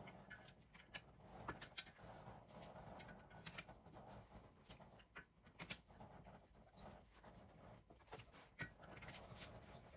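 Faint, scattered light clicks and taps of small metal parts being handled and fitted by hand on the cylinder heads of a Yamaha RD250 two-stroke twin engine. A sharper knock comes about three and a half seconds in and another near the middle.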